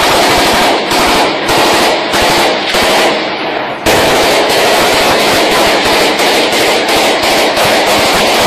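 Heavy close-range automatic gunfire from several rifles and machine guns, shots overlapping in a dense rattle. Short breaks come in the first few seconds, then the fire runs unbroken from about four seconds in.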